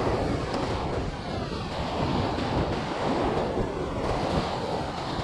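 Lake waves washing steadily against the rocks of a breakwater, with wind noise on the microphone.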